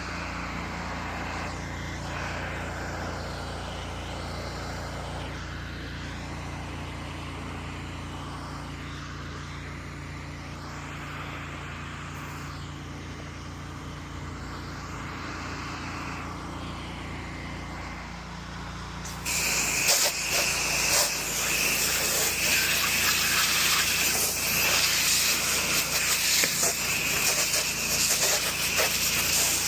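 Pressure washer's engine running steadily, then about two-thirds of the way through the spray gun opens and a loud jet of water hisses over the engine, rinsing down a deck.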